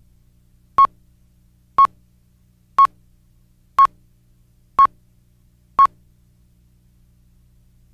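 Film-leader countdown beeps: six short, identical high beeps, one a second, stopping about six seconds in, over a faint low hum.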